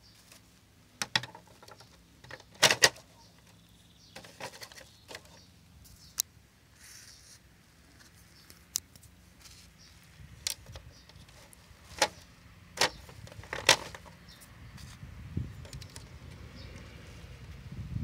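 Scattered sharp plastic clicks and knocks from a vintage Nikko RC truck's plastic body shell and chassis being handled, the loudest pair a little under 3 s in and several more between 10 and 14 s. A low rumble builds near the end.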